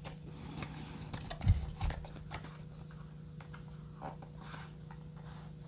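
A small cardboard flashlight box being opened and its contents handled: scattered light taps, scrapes and rustles, with a soft thump about one and a half seconds in.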